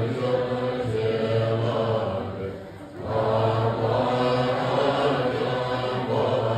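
Assembly of Tibetan Buddhist monks chanting prayers in unison at a low, steady pitch. The chant breaks briefly for breath about two and a half seconds in, then resumes.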